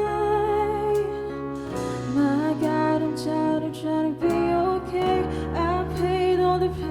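Worship team performing a song: singing over instrumental accompaniment, in long held notes that change every second or so.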